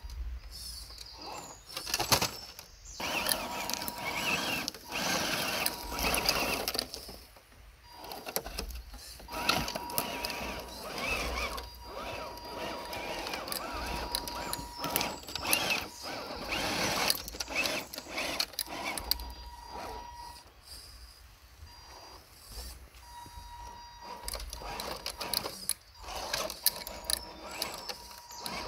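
Electric motor and drivetrain of a radio-controlled scale rock crawler whining in stop-start bursts as it drives, with many clicks and knocks of the chassis and tyres over rough ground.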